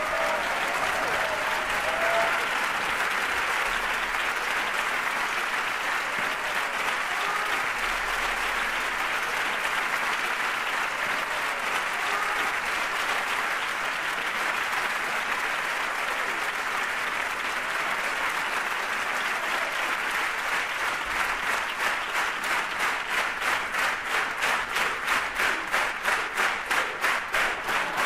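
A theatre audience applauding a ballet curtain call. Near the end, the applause falls into rhythmic clapping in unison.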